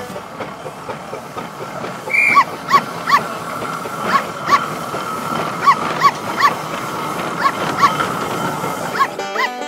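A dog barking about a dozen times in short, irregular woofs, starting about two seconds in, over the steady hiss and rumble of a steam engine.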